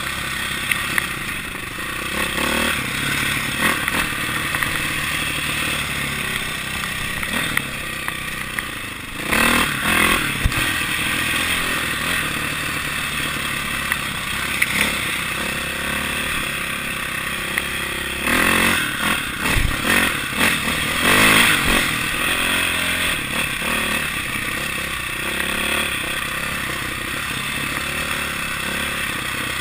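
KTM 450 four-stroke single-cylinder dirt bike engine under way, heard from on board. The throttle opens and closes, with louder surges about nine seconds in and again around eighteen to twenty-two seconds.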